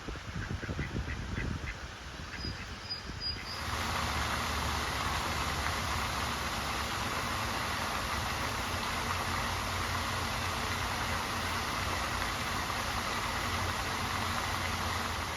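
A few quick duck quacks near the start, with a brief high bird chirp. Then, about three and a half seconds in, a steady rushing noise with a low mechanical hum suddenly takes over and holds.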